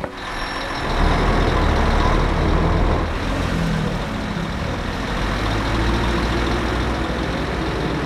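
Hyster forklift's engine running as it drives, a steady low rumble that swells up about a second in.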